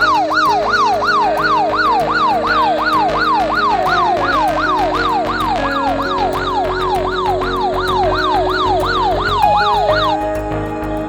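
Electronic siren-style alarm, a falling whoop repeated about two and a half times a second, over background music; it stops near the end.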